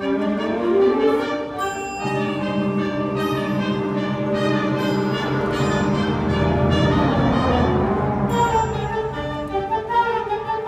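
Student concert band of woodwinds and brass playing a piece live: rising lines in the first second, then sustained full chords with brass and low winds that swell in the middle and thin out near the end.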